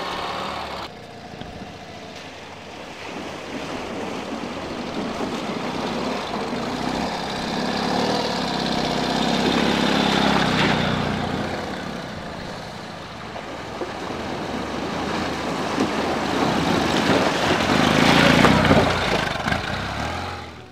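Ural motorcycles' boxer-twin engines running while the bikes ride through water, with splashing noise; the sound swells twice, about halfway through and again near the end.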